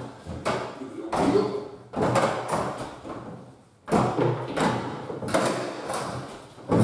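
A tall kitchen cabinet on adjustable legs being shuffled and dragged across the floor: a series of scrapes and knocks, each trailing off, with a pause around three seconds in.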